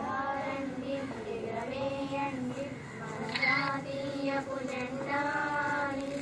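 Children singing a song, voices holding long notes that step from one pitch to the next.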